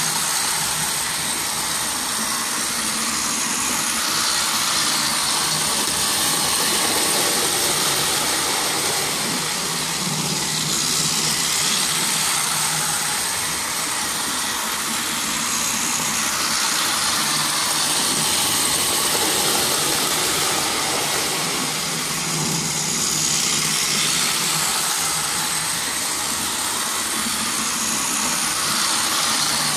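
Small electric motors of battery-powered toy trains whirring as they run around plastic track, a steady whir that swells and fades slightly every several seconds.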